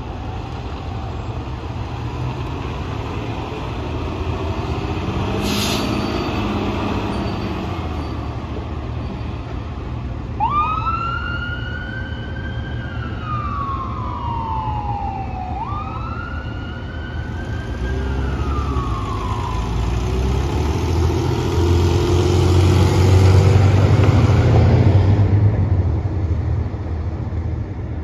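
Fire engine's diesel engine running as it pulls out, with a brief sharp sound about five seconds in. A wail siren then sweeps up and down twice, and the engine and road noise grow loud as the truck drives past near the end.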